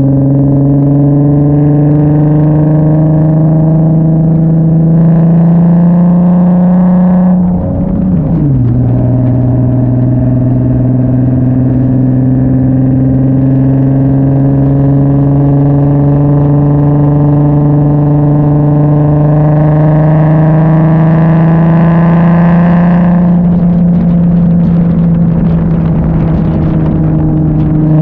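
Nissan 370Z's 3.7-litre V6 through a titanium Tomei cat-back exhaust with test pipes, pulling under load with its note slowly rising. About eight seconds in the pitch drops sharply at an upshift, then climbs again, and near the end it levels off.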